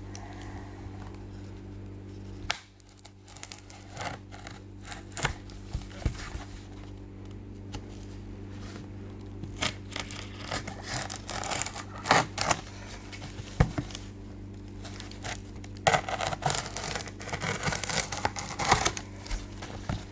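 A tightly wrapped shipping package being cut and torn open by hand with scissors: scattered snips and clicks, with crinkling and tearing of the packaging, in its longest bouts about ten seconds in and again near the end.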